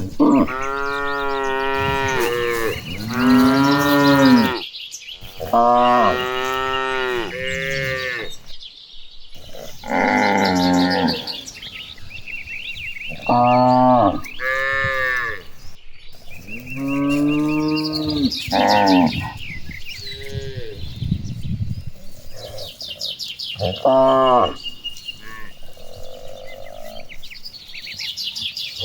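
A herd of cattle mooing, about ten long calls one after another, each one to two seconds, some overlapping from different cows.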